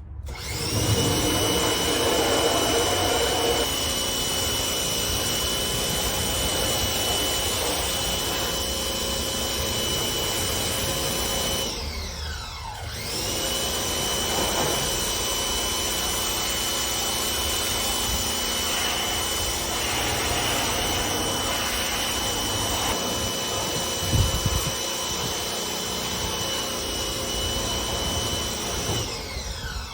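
Pressure washer running and spraying, a steady motor whine over hiss. About 12 seconds in it winds down with a falling pitch and starts up again a second later, then winds down and stops near the end.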